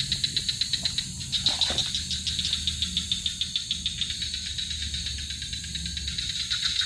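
Night insects, crickets or katydids, chirring in a fast, even pulsing trill with a steadier high hiss behind it.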